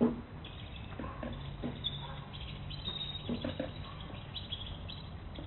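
Faint bird chirps, with a sharp knock right at the start and a few soft knocks later.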